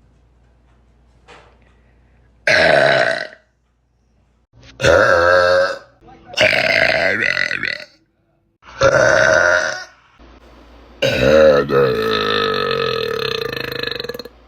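A woman burping loudly, five burps in a row: four lasting about a second each, then a long drawn-out one of about three seconds near the end.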